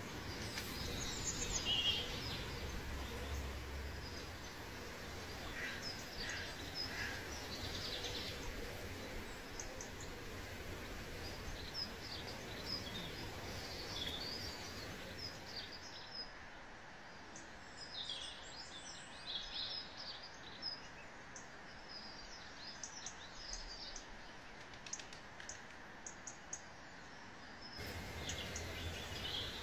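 Birds chirping in short, scattered calls over a steady outdoor background hiss; the background changes abruptly twice, about halfway through and near the end.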